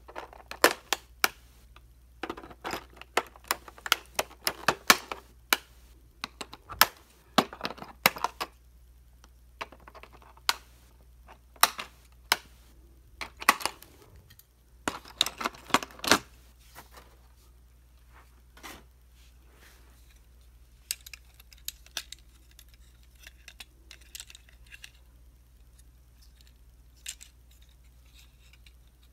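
Clear plastic toy packaging crackling and crinkling as it is handled and cut open with scissors, in quick sharp crackles that are densest in the first half. Sparser light clicks of plastic follow later on.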